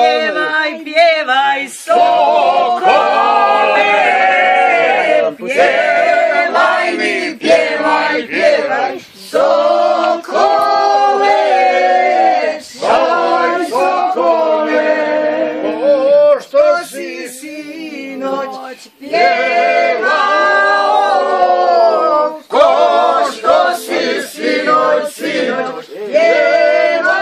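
A group of men and women singing a folk song together in unison without instruments, in long held notes with short breaks between phrases.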